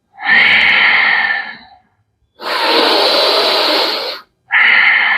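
Deep, long pranayama breaths drawn in and let out through the nose, loud and close: four breaths of one to two seconds each with short pauses between.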